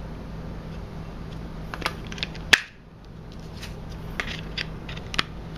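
Short plastic clicks and taps from handling a BlackBerry 8520 and fitting its battery cover back on, a handful of them, the loudest about two and a half seconds in, over a steady low hum.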